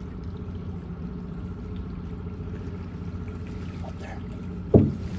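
Honda outboard motor running steadily at low speed, with water sounds around the boat. A single sharp thump comes near the end.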